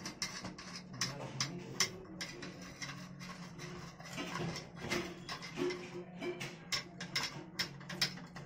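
Irregular small metallic clicks and scrapes of a screwdriver working the retaining screw inside the push-button recess of a chrome Geberit concealed-cistern flush plate.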